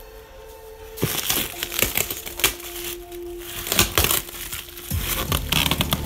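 Plastic wrapping and packing tape crinkling, rustling and snapping as a cardboard box is unwrapped by hand, starting about a second in, over faint background music.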